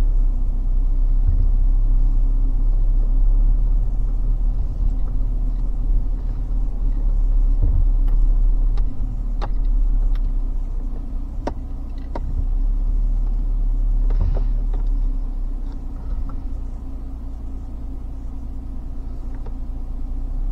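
Car cabin rumble as it drives slowly over a rough grass track, with a few sharp clicks and knocks along the way, easing off slightly near the end.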